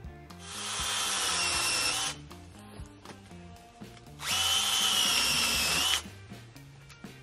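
Litheli U20 mini cordless chainsaw with a brushless motor running in two bursts of about two seconds each, a steady high whine. The second time it cuts through a thin overhead branch.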